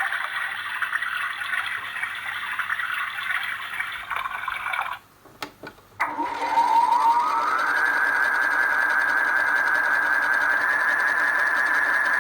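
Old washing machine: a steady rushing noise stops about five seconds in. After a couple of clicks and a second of quiet, the motor starts with a rising whine that settles into a steady machine whine.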